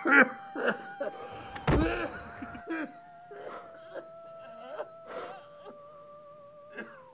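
A man sobbing and gasping in short broken cries that fade away, with one heavy low thump about two seconds in. Under it a soft held music note steps slowly down in pitch.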